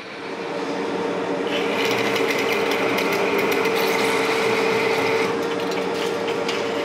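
Monarch engine lathe running under load with a steady gear whine while its carbide insert takes a heavy turning cut in a metal bar. A brighter cutting hiss joins from about a second and a half in and eases off about five seconds in. The cut twists the quick-change tool post, whose stud and nut had stretched loose.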